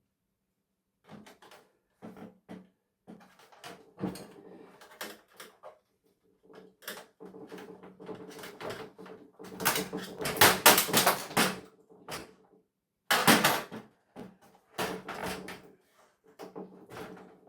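Scattered clicks and knocks of small parts and screws being handled while a flat-screen television is taken apart, with a denser clatter about ten seconds in and another near thirteen seconds.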